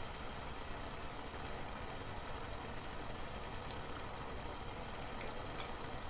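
Water heating in a stainless steel saucepan on a stovetop, short of a full rolling boil: a steady hiss and low rumble as small bubbles form on the pan's bottom, with a couple of faint ticks.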